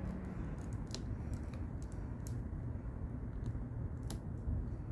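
Light, scattered clicks of hands handling motorcycle headlight wires and a wire connector, over a steady low background hum. The sharpest click comes about four seconds in.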